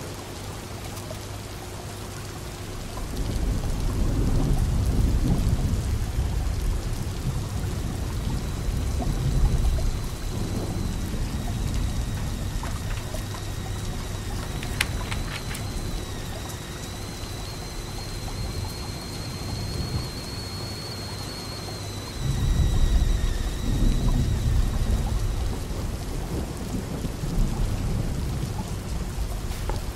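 Steady rain, with two long low rolls of distant thunder: one starting a few seconds in and another about two-thirds of the way through.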